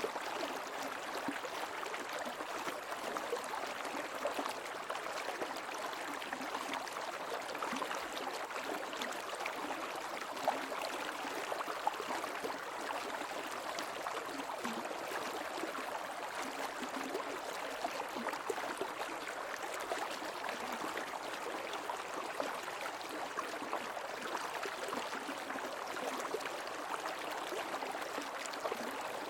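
Creek water flowing steadily in an even rush, with two brief louder splashes near the middle.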